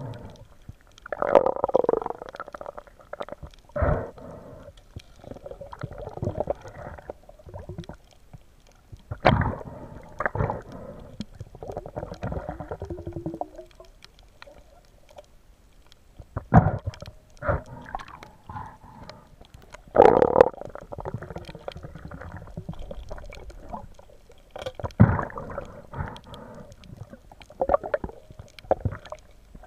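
Muffled underwater gurgling and knocking, heard through a camera housing while a speared grouper is handled on the spear shaft. It comes in irregular bursts every second or two, with a few louder knocks among them.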